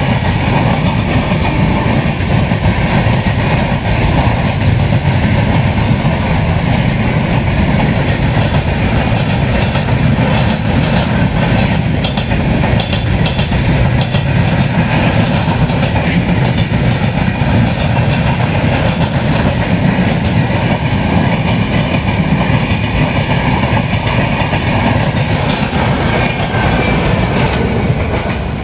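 Express train coaches passing close by at high speed: a steady loud rumble of wheels on rail with clickety-clack over the rail joints. Near the end the last coach goes by and the sound starts to fade.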